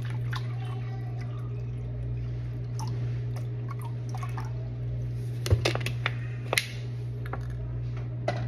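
Water pouring from a plastic bottle into a glass measuring cup, over a steady low hum, with two sharp knocks about five and a half and six and a half seconds in.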